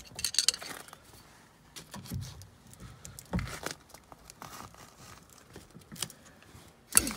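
Scattered clicks, scrapes and plastic crinkling of a flathead screwdriver and hands prying at the plastic mounting clips of a Silverado's factory door speaker, with a sharp knock near the end.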